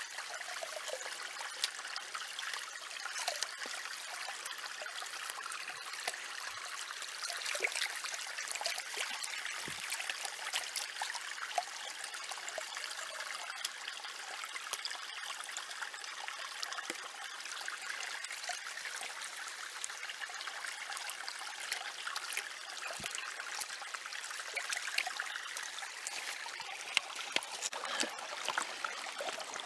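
Small creek running and splashing, with water sloshing and swirling in a plastic gold pan as gravel is washed in it; many small splashes and clicks throughout.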